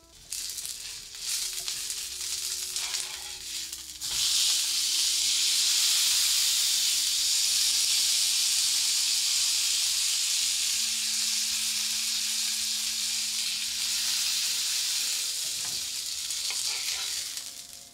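Burger patty frying in a hot ridged grill pan with garlic and miso. The sizzle jumps up suddenly about four seconds in, stays loud and steady, and fades near the end.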